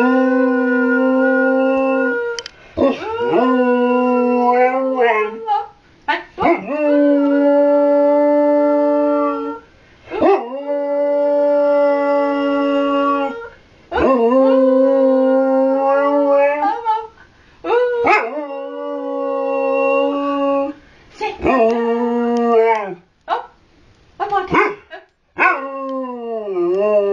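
A husky-type dog howling in a high voice: a run of about seven long, steady howls of two to three seconds each, broken by short breaths, then shorter, wavering howls that slide down in pitch near the end.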